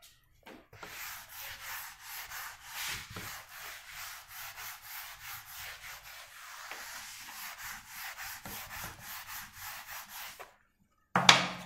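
Whiteboard eraser wiping a whiteboard clean in quick back-and-forth rubbing strokes, about three a second, which stop shortly before the end. Then one short, loud knock.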